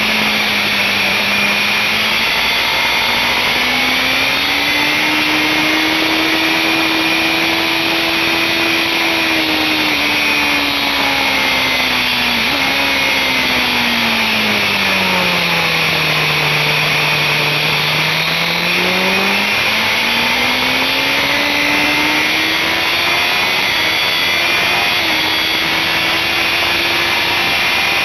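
BMW S1000RR inline-four engine running hard on track, its pitch climbing, holding, sinking slowly about halfway through and climbing again, under heavy wind rush on the onboard microphone.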